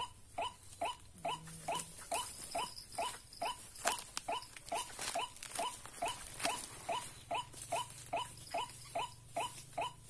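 White-breasted waterhen (ruak-ruak) calls, a steady series of short notes repeated about three a second, the call used to lure waterhens into the snares.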